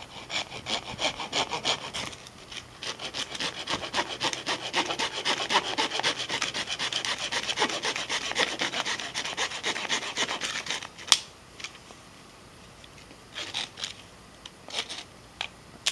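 Replacement wood-saw blade on a Leatherman Surge multitool cutting through a small log by hand in rapid, steady back-and-forth strokes. The sawing stops with a single sharp crack about eleven seconds in, followed by a few light knocks.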